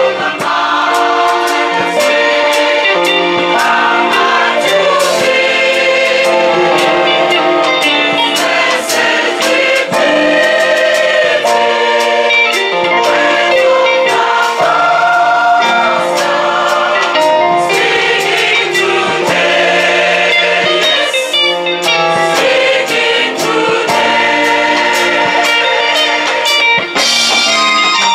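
A women's church choir singing a gospel hymn in harmony, with sharp percussive beats running under the voices.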